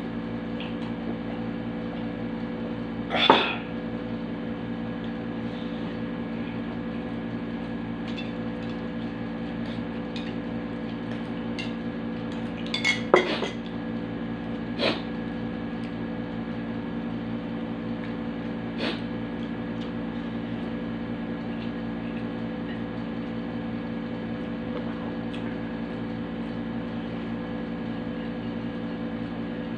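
A spoon and dishes clinking now and then while eating: a handful of sharp clinks, the loudest about three seconds in and a cluster around thirteen seconds, over a steady hum.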